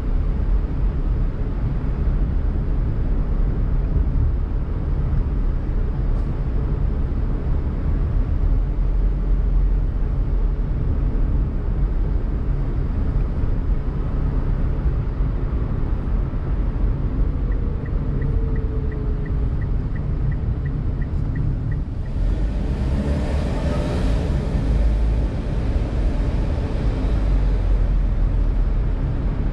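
Daihatsu Mira Tocot kei car being driven, its steady low engine and road rumble running throughout. Past the middle comes a short run of light, evenly spaced ticks, about three a second. Near the end a louder rushing noise swells and fades.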